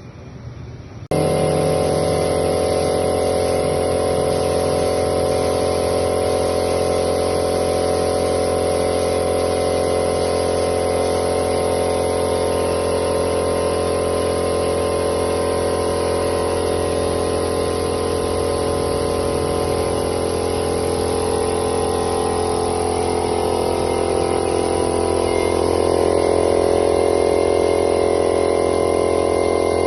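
Powder coating equipment running: a steady electric machine noise with a strong mains hum, switched on abruptly about a second in and holding an even level.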